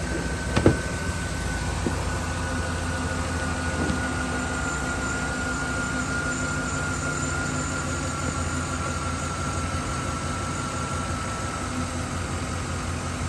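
Chevrolet Silverado 5.3-litre V8 idling steadily and smooth after a cracked spark plug was replaced: the misfire is gone. A short knock sounds about half a second in.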